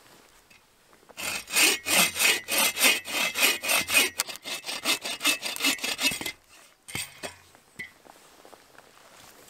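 Bow saw cutting through a moss-covered log: quick, even back-and-forth strokes begin about a second in and stop suddenly a few seconds later once the cut goes through. A single knock follows shortly after.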